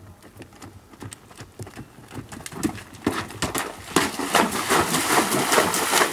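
Hoofbeats of a cantering horse, faint at first and growing louder from about three seconds in, then a louder spell of splashing and hoof strikes as it goes into the water jump.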